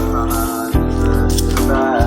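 Background music: a Gurbani hymn, a sung melody over steady held tones, with a low stroke about three quarters of a second in.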